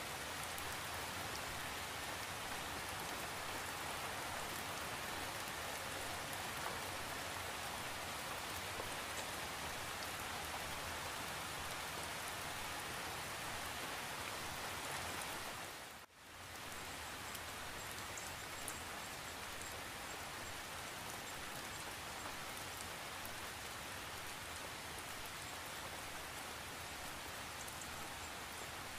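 Steady rain falling, an even hiss of countless drops. Just past halfway it briefly fades almost to nothing and then comes back.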